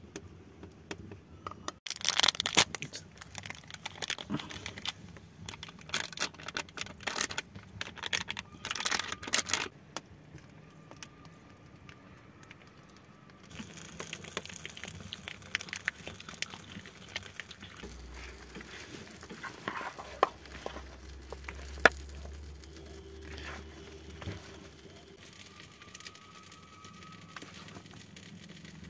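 Plastic spice packet being torn open and crinkled in several loud bursts over the first ten seconds, then quieter handling noise and one sharp click a little past the twenty-second mark.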